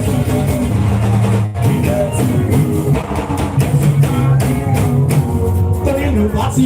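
Live band music with a drum kit, bass and guitar playing a steady beat.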